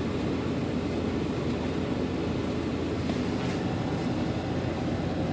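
Steady low rumble and hum inside a vehicle's cab, the sound of the running vehicle and its ventilation, with a few faint ticks.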